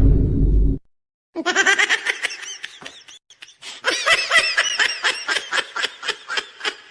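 A loud low rumble cuts off under a second in. Then comes a high-pitched, rapid giggling laugh in two bouts with a short pause between them.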